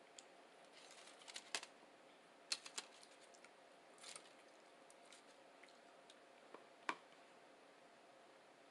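Quiet close-up eating sounds: chewing a breakfast burrito with scattered sharp mouth clicks and smacks in small clusters. The loudest come about two and a half seconds in and near seven seconds.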